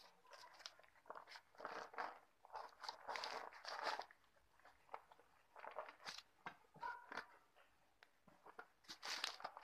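Paper and aluminium foil crinkling and rustling in irregular bursts as hands twist wire around a newspaper-wrapped foil packet and handle it.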